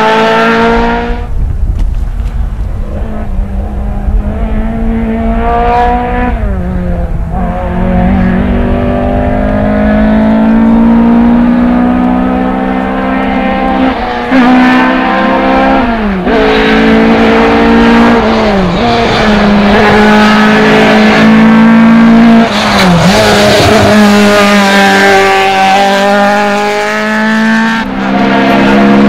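Toyota Celica RA40 rally car's 18R four-cylinder engine driven hard. It climbs in pitch and drops back sharply again and again as it shifts gear and lifts off, with a low rumble underneath.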